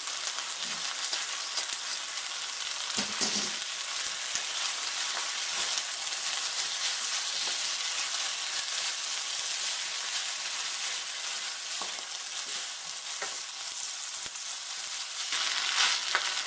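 Fried rice with ground pork and blanched bean sprouts sizzling in a frying pan while it is tossed and stirred with a wooden spatula and wooden chopsticks, the utensils scraping and clicking against the pan. The stirring clicks come thicker near the end.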